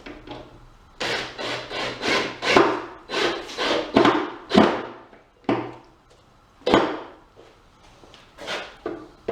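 Wood scraping and rubbing in quick repeated strokes, about two or three a second, for about four seconds, then a few single strokes near the end, as the wooden pool table skirt boards are worked into place.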